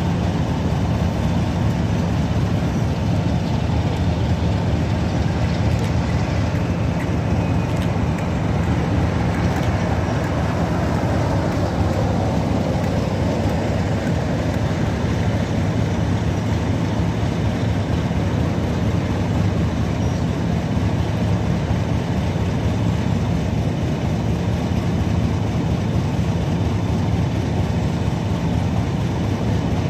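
Heritage diesel locomotive running with a steady low engine drone as it hauls a rake of coaches slowly through the platform, louder for a few seconds about ten seconds in, then the coaches rolling past.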